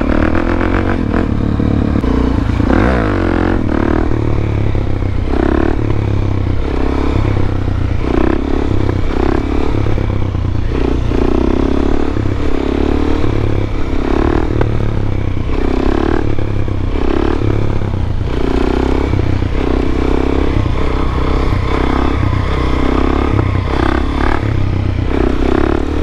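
Suzuki DR-Z400SM single-cylinder four-stroke engine running through an aftermarket FMF PowerCore 4 exhaust while being ridden, loud throughout, its note swelling and easing about once a second as the throttle is worked.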